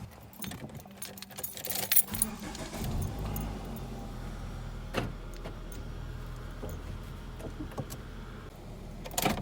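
Keys jangling with clicks, then about two to three seconds in a pickup truck's engine starts and runs on at a steady idle, with a couple of sharp clicks.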